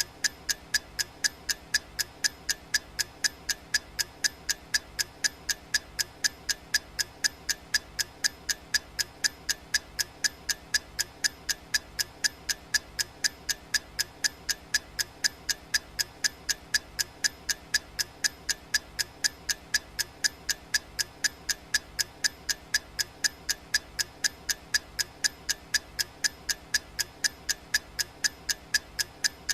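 Clock ticking sound effect of a countdown timer: sharp, evenly spaced ticks with a slight ring, repeating steadily.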